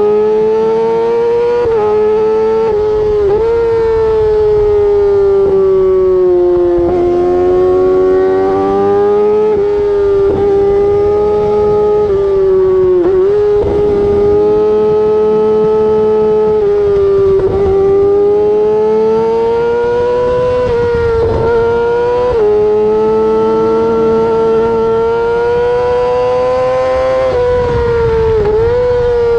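2008 Yamaha R6's inline-four engine through an Akrapovic exhaust, running high in the rev range under way: a loud, high-pitched howl that rises and falls gently, with brief dips in pitch several times.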